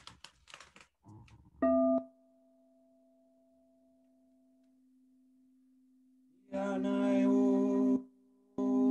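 A few soft knocks of handling, then a singing bowl is struck once and rings out with a low note and a fainter higher overtone, fading slowly. Near the end a much louder steady tone rich in overtones sets in, breaks off briefly and starts again.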